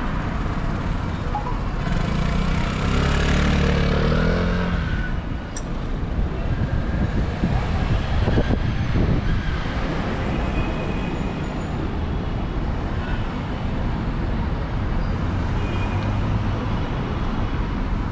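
Steady road-traffic noise, with a vehicle's low engine rumble swelling about two seconds in and fading by about five seconds.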